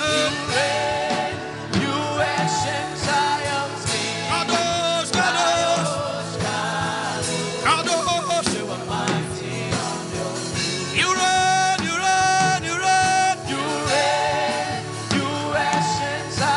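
Live worship music: singing with a band.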